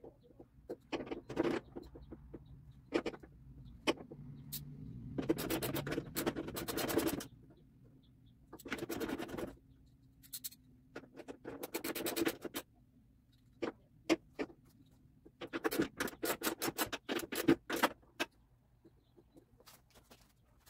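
Hand work at a car's front end: scattered sharp clicks and knocks, with several runs of rapid, evenly spaced ratcheting clicks lasting one to two seconds each, and some scraping.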